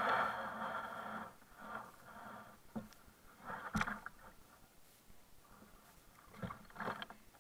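Water noise against a plastic sit-on-top kayak for about the first second, then quieter, with a few short knocks and scrapes on the hull as a child stands up and climbs about on it.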